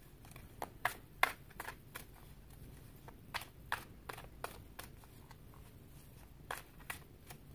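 Tarot cards being shuffled and handled by hand to draw one more card: a string of short, irregular card snaps and taps with pauses between them.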